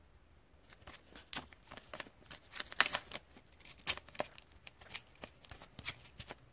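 Crinkling and sharp clicking of a clear plastic trading-card holder being handled, in quick irregular crackles that start about half a second in.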